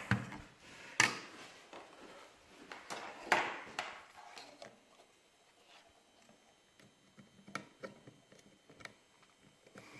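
Small handling clicks and knocks from wiring work with connectors and cables: two sharp clicks about a second and three seconds in, then a few lighter ticks.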